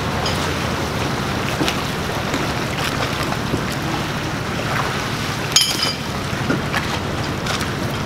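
A motor yacht's engines running with a steady low hum while the propeller wash churns the harbour water. A short sharp clink sounds a little past halfway.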